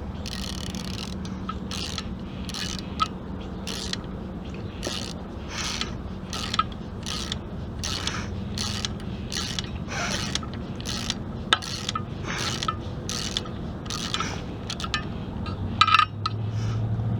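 Hand socket ratchet clicking in repeated short strokes, about two a second, as bolts are backed out of a Chevy 3.1L V6 during teardown, with a few sharper metal knocks. A steady low hum runs underneath.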